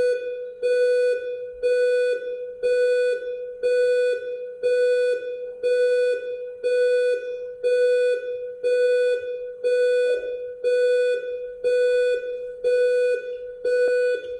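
Reacher dual alarm clock's buzzer alarm going off: a buzzy electronic beep repeating about once a second.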